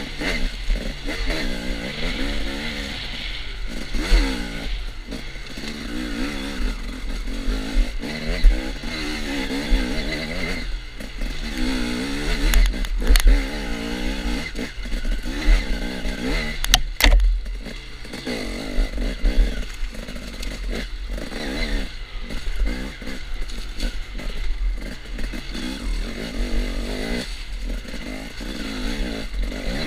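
KTM dirt bike engine revving up and down as it is ridden along a bumpy woods trail, heard close from the onboard camera, with a low rumble of wind and vibration on the microphone. A few sharp knocks and clatter come through partway along.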